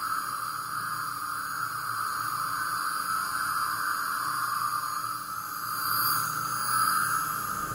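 Synthesized sci-fi 'alien' sound effect: a steady electronic drone, a mid-pitched hum with a high hiss above it, swelling slightly twice near the end.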